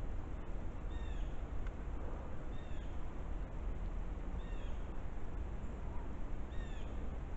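A bird calling several times: a short, arched call about every one and a half to two seconds, over a steady low rumble.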